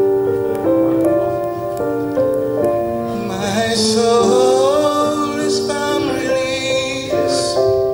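Piano music played through a pair of DeVore Fidelity Orangutan Bronze loudspeakers, with a singing voice coming in about three seconds in and fading near the end.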